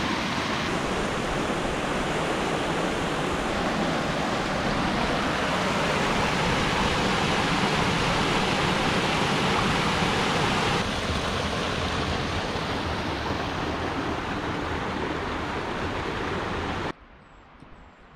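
Mountain creek rushing and splashing over rocks in small cascades: a steady, dense rush of water that cuts off suddenly about a second before the end.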